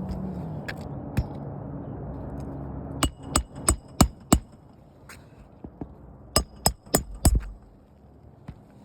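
Hammer striking on the roof in two quick runs: five blows about three a second, a pause, then four more, each with a short metallic ring. Before the first run, a steady low hum drops in pitch and dies away.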